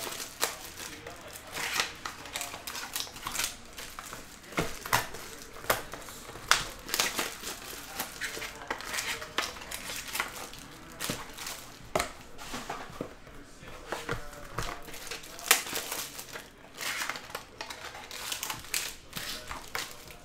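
Foil wrappers of baseball card packs crinkling and tearing as hands open and handle them, in a dense run of sharp crackles.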